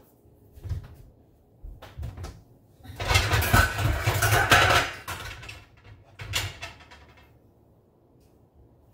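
Pots, pans and lids clattering and knocking as a lid is fetched from a low kitchen cabinet: a few single knocks, then a loud rattling stretch lasting about two seconds near the middle, and another knock after it.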